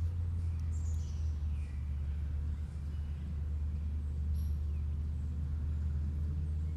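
Scattered bird chirps over a steady low rumble.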